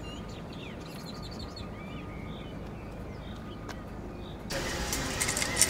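Small birds chirping faintly over a steady outdoor background. About four and a half seconds in, the background gets louder, with a few sharp clicks.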